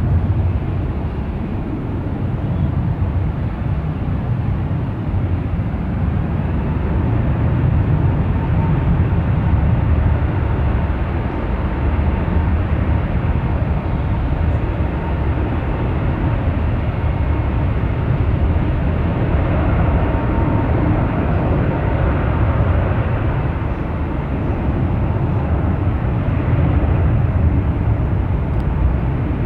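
Airbus A380's four Rolls-Royce Trent 970 turbofans running, heard from a distance as a steady low rumble with a faint whine coming and going above it.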